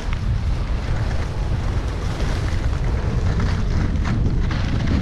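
Wind buffeting the microphone of a camera moving fast downhill, over the steady hiss and scrape of skis sliding on groomed snow.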